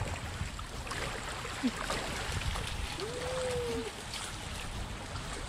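Cast net being hauled through shallow water, with splashing and dripping from the wet mesh over a steady rumble of wind on the microphone. A brief whistle-like tone sounds about three seconds in.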